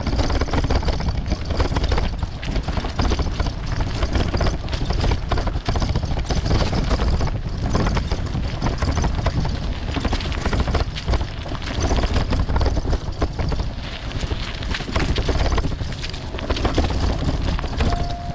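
Wind buffeting a bicycle-mounted action camera's microphone while a bicycle runs over a gravel forest road. Tyres crunch on the stones and the bike rattles with dense irregular clatter.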